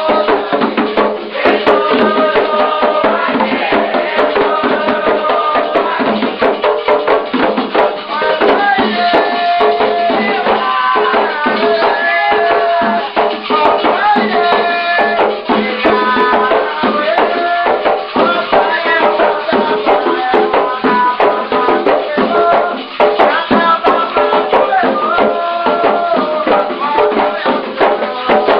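Candomblé ritual music: hand drums and rattles keep a steady beat under group singing of chants.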